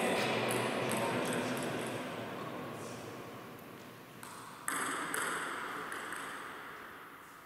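Celluloid-type table tennis ball being bounced between points, light pings about twice a second, over a broad hiss that fades, rises sharply about two thirds of the way through, then fades again.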